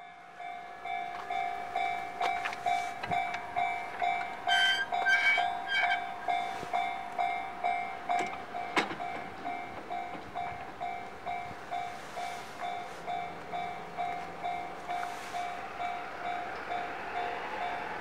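Japanese railroad-crossing warning bell ringing steadily at about one and a half dings a second, with the barriers down, signalling that a train is approaching.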